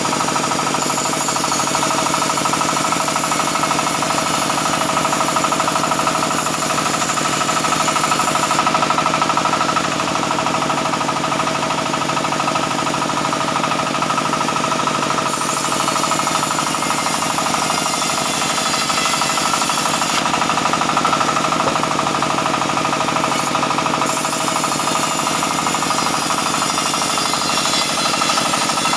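Sawmill band saw machinery running steadily and loudly while working mahogany logs.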